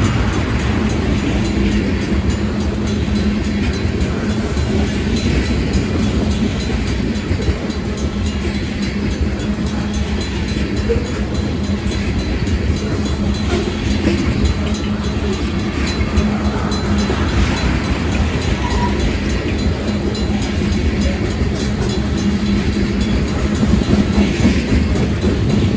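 Tank cars of a freight ethanol train rolling steadily past on the rails, with a continuous low rumble and the rattle of wheels on track.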